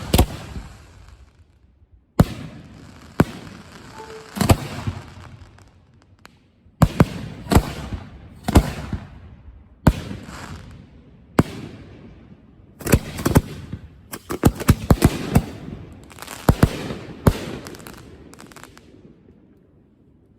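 Aerial firework shells bursting in a run of sharp booms, each followed by a fading crackle, a second or two apart at first and then bunching into a rapid string about two-thirds of the way through.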